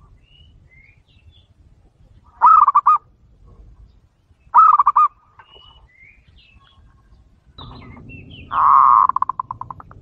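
Zebra dove (perkutut) cooing: two short runs of quick coos a couple of seconds apart, then a longer run whose notes fade out near the end, with faint higher chirps in between.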